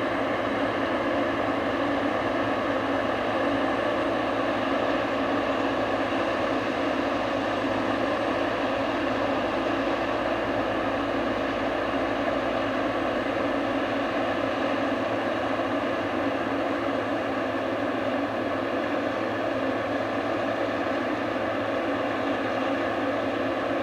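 Heavy farm harvest machinery running steadily at constant speed, an even engine-and-machinery drone with no change in pitch.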